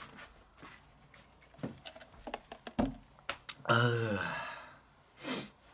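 A man's breathy sigh, voiced and falling in pitch, about four seconds in, after a few light clicks and knocks as he handles a plastic cup and settles in; a short breath follows near the end.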